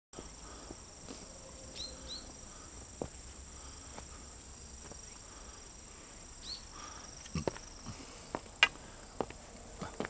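Insects trill steadily in the woods, a continuous high-pitched drone. A few short high chirps cut in near the start and again midway. From about seven seconds in, several sharp footfalls and scuffs sound on the path.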